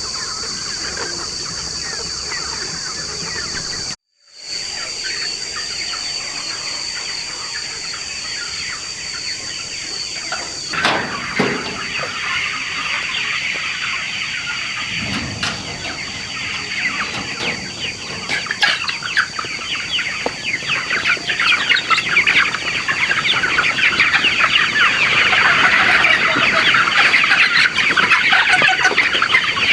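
A large flock of chickens clucking, the calls growing louder and denser through the second half, over a steady high-pitched whine. The sound cuts out briefly about four seconds in.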